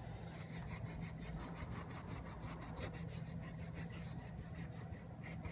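Quick rubbing strokes, several a second, over a steady low hum.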